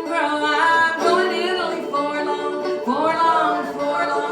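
A folk song sung with plucked string accompaniment; the singing holds long notes throughout.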